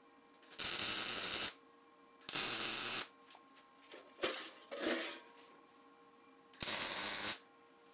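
MIG welder laying tack welds on 1/8-inch flat steel plate: three short bursts, each under a second, with a couple of weaker short sounds in between.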